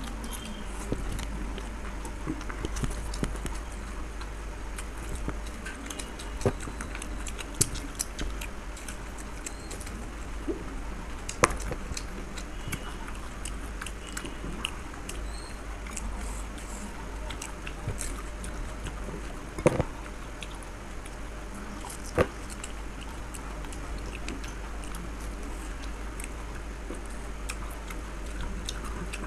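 Mouth-close eating sounds of fuchka (panipuri) and chowmein: chewing, with a few scattered sharp crunches and clicks as the crisp puri shells are bitten, over a steady low hum.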